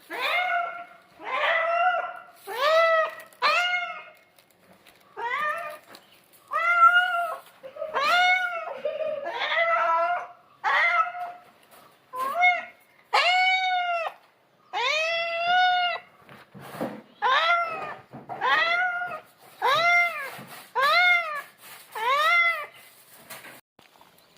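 Domestic cat meowing over and over, about one short call a second, each call rising and then falling in pitch. These are the insistent calls of a cat worked up by the smell of fish.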